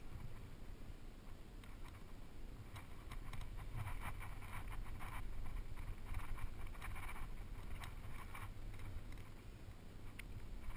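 Scraping and rustling as a rock climber's body and gear brush against the rock close to a head-mounted camera, over a steady low rumble of wind and handling on the microphone. The scratchy crackles cluster in the middle of the stretch, with a few sharp clicks later.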